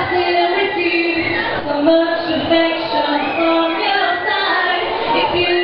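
High voices singing a melody in long held notes that step from one pitch to the next.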